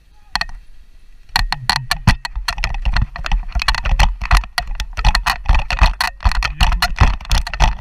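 Worn action camera jostled while moving fast over a rough dirt path: a sharp knock just after the start, then from about a second and a half in a dense run of irregular rattles and knocks over a low rumble.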